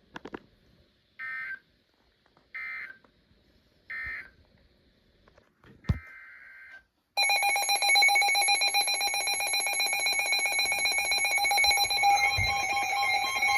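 Emergency Alert System data bursts: three short identical bursts about 1.3 s apart, the end-of-message code closing the warning, then a single longer burst. About seven seconds in, a loud steady multi-tone EAS attention signal starts and holds.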